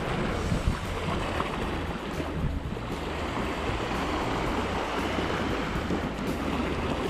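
Sea waves washing over the rocks along the shoreline, with wind buffeting the microphone in a steady low rumble.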